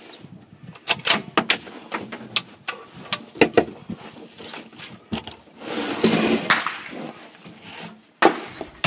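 Irregular knocks, clicks and rustling of a rifle and shooting gear being handled and shifted against a wooden barricade, with a louder knock near the end.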